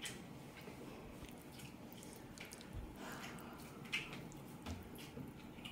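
Faint wet squishing and scraping as a fork stirs and lifts saucy buldak noodles in a ceramic bowl, with a short click about four seconds in.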